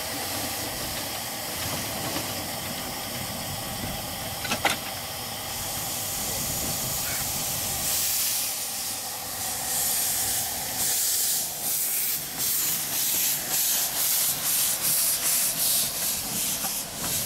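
Small narrow-gauge steam locomotives. First a steady hiss of steam from a locomotive standing in steam. Then, from about 8 seconds in, a second locomotive gets moving with loud steam venting from its open cylinder drain cocks, which turns into even chuffs, about two to three a second.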